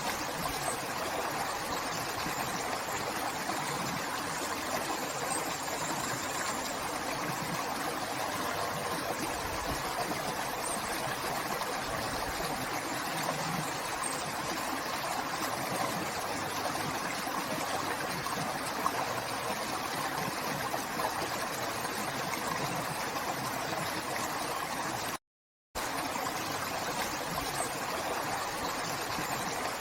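River water flowing steadily, an even rushing and babbling with no change in pace. The sound cuts out to silence for about half a second near the end, then resumes unchanged.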